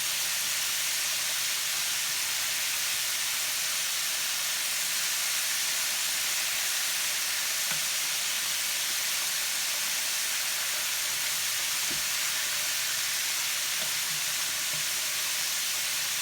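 Floured chicken strips frying in hot grease in a cast iron skillet: a steady, even sizzle with a few faint pops.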